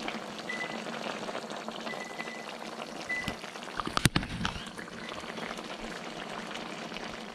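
Thick, reduced spicy chicken stew bubbling and sizzling steadily in a wok on the heat. A single sharp click sounds about four seconds in.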